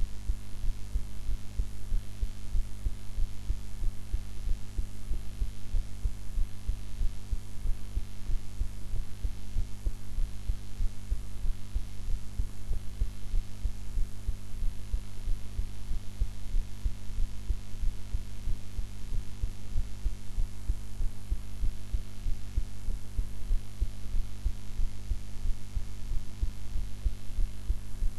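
A human heart beating, picked up close on the chest: a steady run of regular, low, muffled beats. Under the beats runs a constant low hum that has not been edited out.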